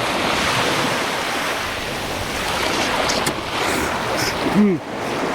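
Surf washing on the beach, a steady rush of noise, with a brief hummed voice sound near the end.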